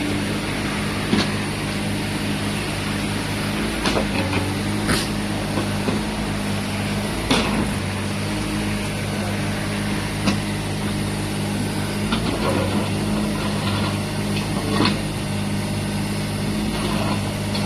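Mini excavator's engine running steadily under load, with sharp knocks every few seconds as the bucket strikes and scrapes hard ground.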